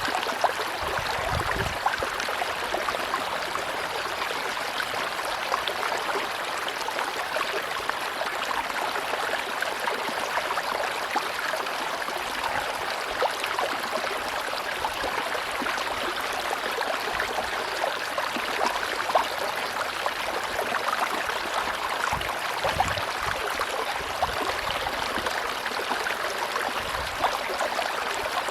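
Tropical river water rushing and gurgling over rocks in a steady stream, with many small splashes and trickles.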